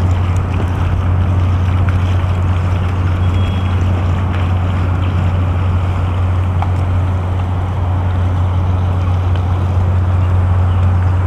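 Steady low rumbling drone over a constant outdoor background hiss, unchanging throughout.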